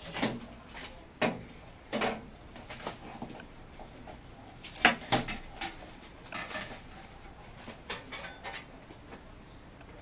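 Scattered sharp knocks and clatters, about ten, the loudest about five seconds in, from a plastic-wrapped box and its cords being handled on a wood floor.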